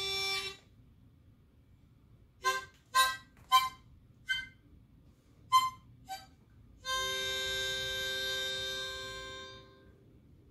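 A reed wind instrument playing a recording. One held note ends about half a second in. Six short, detached chords follow, then one long held chord that fades away shortly before the end.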